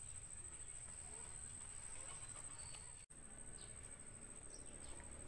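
Faint rural outdoor ambience: a steady high insect buzz with a few short bird chirps over a low rumble. It cuts out for an instant about three seconds in.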